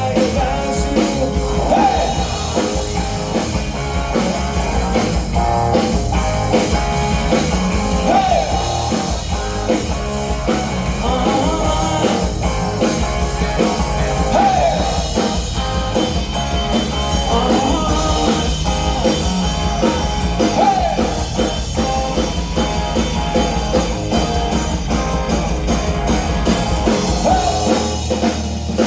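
Live rock band playing, with electric guitar, drum kit and a lead line that bends in pitch.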